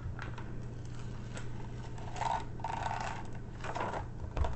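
Clear plastic protective film being peeled back off a sticky diamond painting canvas, crackling and rustling in spells about two seconds in and again near the end, with a few small clicks. A steady low hum runs underneath.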